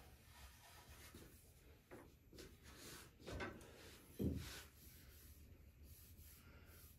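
Faint rubbing and handling sounds as a pool player moves into position and settles his cue for a shot, with a dull thump a little over four seconds in. No ball is struck.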